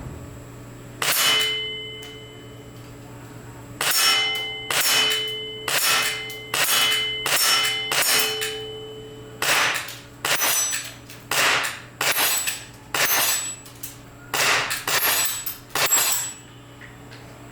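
Umarex/VFC Glock 19 Gen.4 gas blowback airsoft pistol firing: one shot, then after a pause a long string of shots at about two a second, some in quick pairs. Many shots are followed by a ringing clang.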